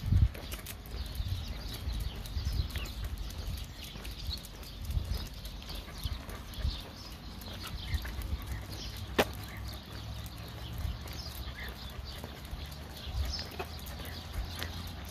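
Footsteps on asphalt during a walk with two leashed dogs: the dogs' paws and claws and the walker's shoes in an irregular clicking patter over a low handling rumble, with one sharp click about nine seconds in.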